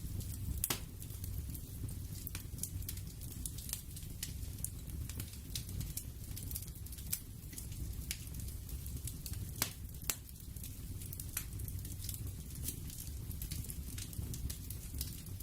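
Steady crackling ambience: irregular pops and snaps over a low, even rumble, with a few louder snaps scattered through.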